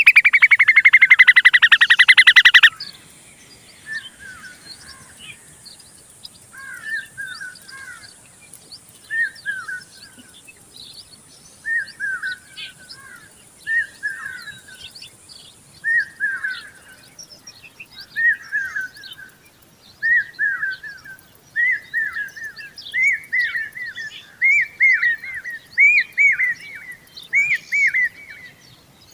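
Common babbler chirping: short clusters of chirps every second or two, growing louder near the end. It opens with a loud, rapidly pulsed buzzing for the first couple of seconds.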